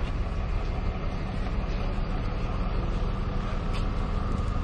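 Outdoor street ambience: steady low rumble of road traffic and buses, with wind buffeting the microphone.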